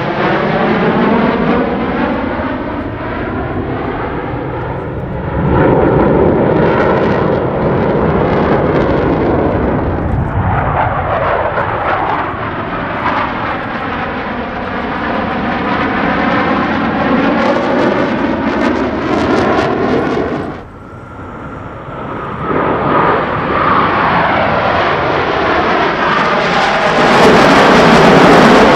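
Blue Angels F/A-18 Super Hornet jets flying past in a display, loud jet engine noise swelling and fading as they pass. The noise drops off sharply about two-thirds of the way through, then another pass builds to the loudest point near the end.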